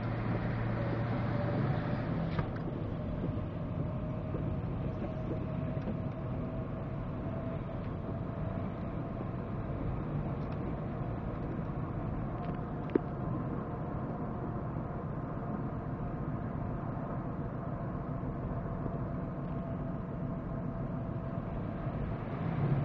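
Steady road and engine noise heard inside a GMC Yukon's cabin as it drives along a wet, partly flooded highway, with tyres running on wet pavement. A single sharp click sounds about thirteen seconds in.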